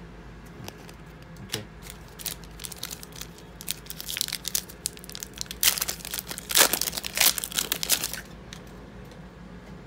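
Foil wrapper of a trading-card pack being torn open and crinkled by hand. Scattered sharp crackles start about a second and a half in and grow denser, loudest between about five and a half and eight seconds in, then stop.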